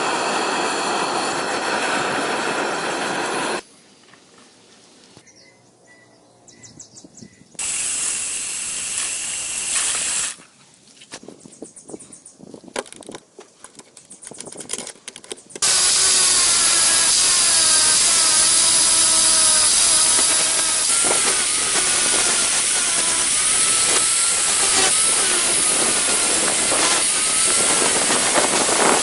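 A power tool working on the metal of an old hammer. It runs loudly for a few seconds, stops for a few seconds of quieter knocking and handling, runs again briefly, and from about halfway runs steadily to the end, its pitch wavering as it bears on the work.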